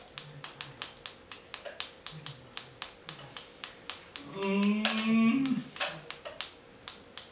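Sharp clicks repeating about four times a second, with short low hums between them. About four seconds in, a person's voice rises into a drawn-out, wavering cry that lasts just over a second.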